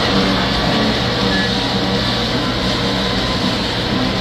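Steady rumble and whir of three-rail toy trains running on a large layout, with faint held hum tones.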